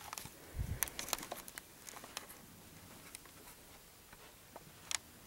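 Light footsteps and phone-handling noise of someone creeping quietly into a room: scattered soft clicks and rustles, with a dull low thump about half a second in.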